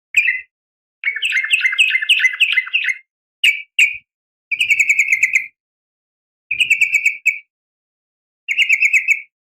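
Yellow-vented bulbul (trucukan) giving a female call to draw males: a series of rapid chattering phrases, the longest about two seconds, with a few short single notes between them.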